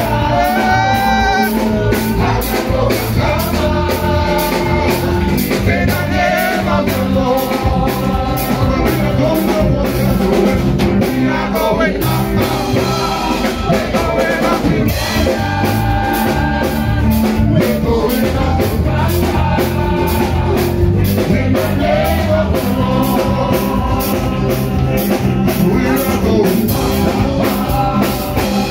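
Live gospel band playing through PA speakers: singers on microphones over electric bass guitar, keyboard and drum kit, with a steady beat.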